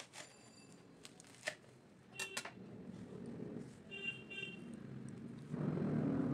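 Kitchen knife chopping gourd leaves on a wooden cutting board: a few sharp knocks of the blade, some with a short metallic ring. About five and a half seconds in, a louder steady rustle starts as hands gather up the cut leaves.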